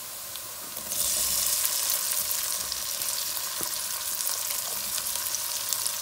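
Hot oil sizzling under frying onions; about a second in, boiled green beans tipped into the pan make it sizzle louder, with a stream of small crackles as the wet beans hit the oil.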